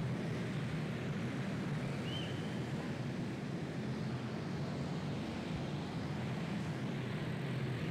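A pack of quarter midget race cars running laps, their small Briggs & Stratton Animal engines blending into one steady drone.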